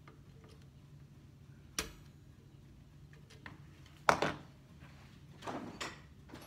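Small tools handled on a wooden workbench: a sharp click, then a louder knock about four seconds in as a tool is set down, followed by a couple of softer knocks.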